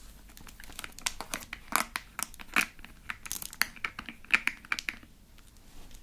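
Long acrylic nails clicking and scraping on a small plastic squeeze bottle of slime glue as it is handled and opened, with crinkly plastic crackles. Irregular sharp clicks for about five seconds, then it goes quieter near the end.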